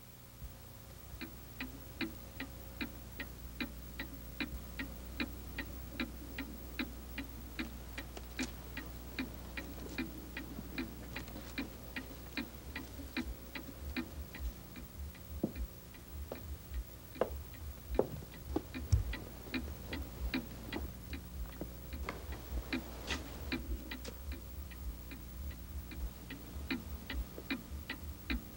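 Clock ticking steadily, about two and a half ticks a second, over a low steady hum. A few louder knocks and a thump come in the middle.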